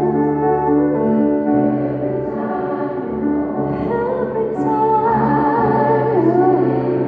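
Gospel choir singing with a female soloist, over electric keyboard accompaniment. About five seconds in, the soloist's voice comes forward in a wavering, ornamented line with vibrato above the held choir chords.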